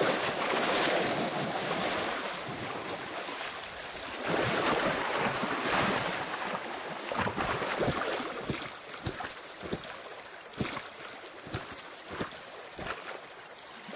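River water splashing and churning as Nile crocodiles thrash while tearing at a gazelle carcass. There are heavy rushing splashes at the start and again about four to six seconds in, then scattered smaller splashes.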